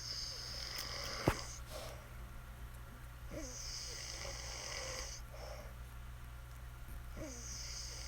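A sleeping woman snoring: three long hissing breaths about three and a half seconds apart, each starting with a short falling squeak. A sharp click about a second in is the loudest sound.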